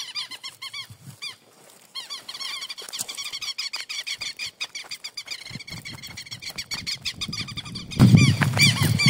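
Rapid, repeated high chirping calls from an animal, several a second and without a break, over soft footsteps and ticks on mud. About eight seconds in, a louder low rumble comes in.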